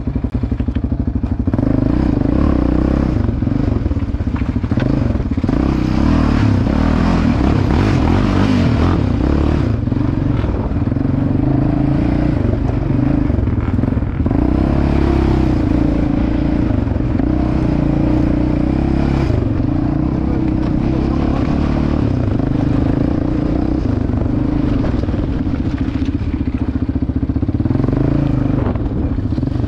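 Yamaha Raptor 700 ATV's single-cylinder engine running steadily and loud while riding off-road.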